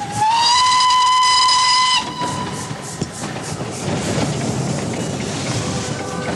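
Narrow-gauge steam locomotive's whistle blowing one long blast, sliding up in pitch as it opens, then cut off after about two seconds. After it comes the steady rhythmic beat of the train running. Music comes in near the end.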